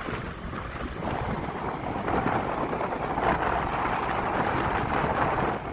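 Steady rush of the Gullfoss waterfall, with wind buffeting the microphone.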